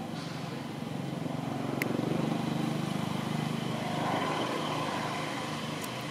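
A motor vehicle's engine running, a steady droning hum that grows louder over the first couple of seconds and eases off after about four seconds, with one brief sharp tick about two seconds in.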